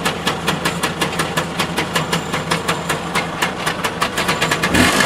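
Lambretta scooter's two-stroke engine idling with an even beat of sharp ticks about six times a second, briefly revved near the end. The scooter keeps cutting out, and it is being run so that the fault can be heard.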